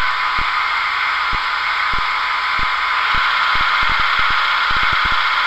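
OO-gauge model HST Class 43 power car's LokSound sound decoder playing the diesel engine idle through the model's small speaker: a steady hum, with irregular short low clicks through it.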